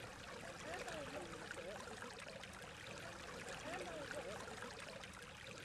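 A small stream trickling and running, with faint rising-and-falling tones that come and go now and then.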